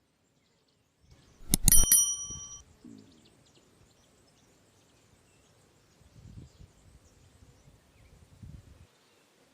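A single sharp metallic strike that rings on for about a second with several high tones, like a small bell, followed later by two faint low rumbles.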